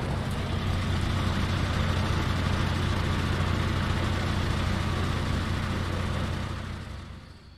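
Van engine running as it drives past, a steady low engine drone that fades away near the end as the van moves off.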